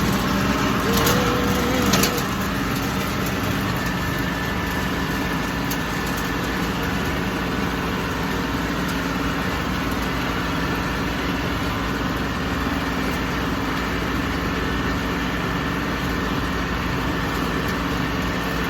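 Big farm tractor's engine running at a steady speed while bush hogging a field, with a couple of brief knocks in the first two seconds.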